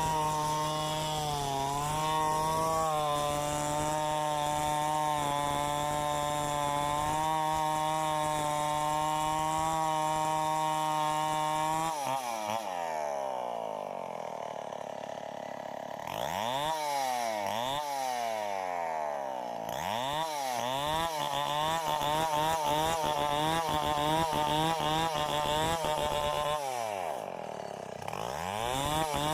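Tecomec two-stroke chainsaw running steadily at high revs. About midway the throttle drops off, and the engine is revved up and down several times before it runs at high speed again. It dips and picks up once more near the end.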